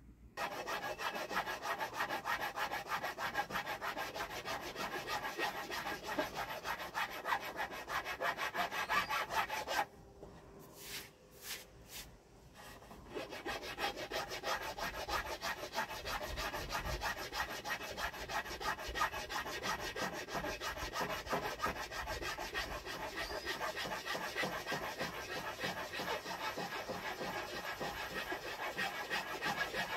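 A hand file rasping back and forth across the end of a wooden staff in quick, continuous strokes, shaping the wood down to take a compression-fit copper end cap. The strokes pause for about three seconds around ten seconds in, with a few light clicks, then start again.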